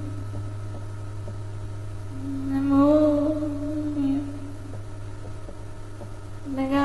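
A voice singing long, held, wordless notes, one phrase about two seconds in and another starting near the end, over a steady low hum.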